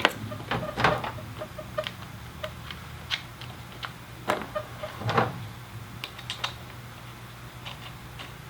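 Irregular light clicks and taps of small metal hardware as nuts are threaded by hand onto skateboard truck mounting bolts, a few louder knocks among them, over a low steady hum.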